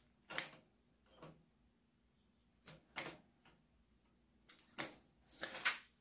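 Sharp clicks and snips of a small hand wire stripper and cutter working the ends of electrical wires, coming singly at uneven gaps, with a denser scratchy clatter near the end.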